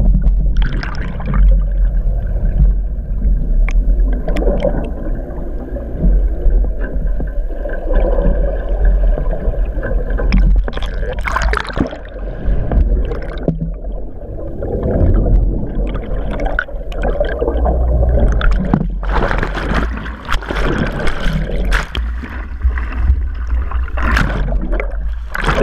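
Water churning and bubbling around a GoPro in its waterproof housing, held underwater on the end of a gaff, heard as a constant low rumble. Several bursts of splashing break through, one near the end as the camera breaks the surface.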